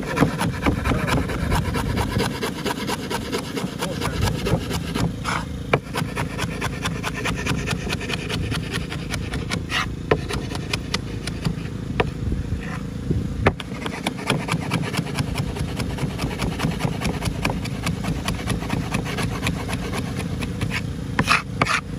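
Cleaver chopping vegetables on a wooden cutting board: a quick, continuous run of knocks of the blade striking the wood.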